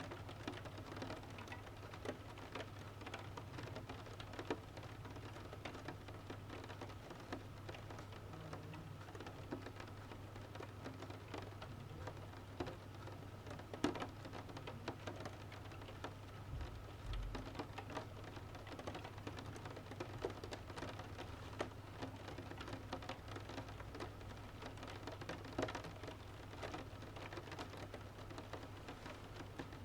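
Steady rain with many separate drops ticking on a hard surface, one drop standing out about halfway through, over a low steady hum.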